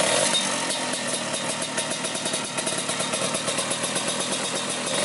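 Classic Vespa's stock two-stroke single-cylinder engine running steadily through an RF racing expansion-chamber exhaust that exits on the right. The exhaust note is crisp.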